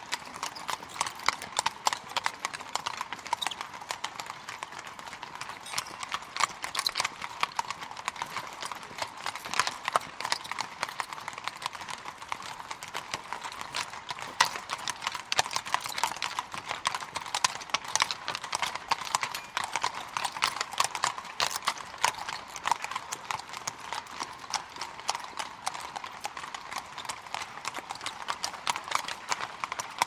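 A group of horses walking on cobblestones, many hooves clip-clopping in a dense, overlapping, unbroken run of strikes.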